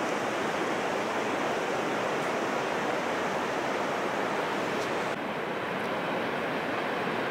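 Heavy surf breaking continuously on a sandy ocean beach: a steady wash of waves, the rough swell left by a passing typhoon.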